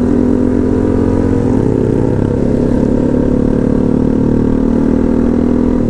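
Motorcycle engine running steadily under way, its pitch holding nearly level, with a brief shift about a second and a half in.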